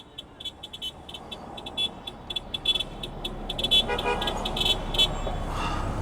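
Car horn of the vehicle behind honking in many short, irregular toots, heard from inside a moving car over road noise that swells about halfway through.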